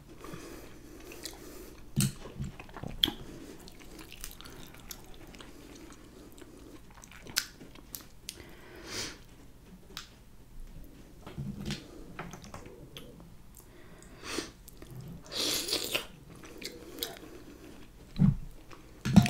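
Close-miked chewing and wet mouth sounds of eating sauce-coated mussels, with scattered small clicks of shells and a fork as the mussels are picked out.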